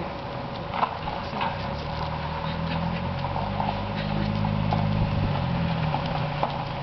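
Footsteps of a person and a dog shuffling and crunching on wood-chip ground, with scattered crackles. A low engine drone of a passing vehicle swells in the middle and fades near the end.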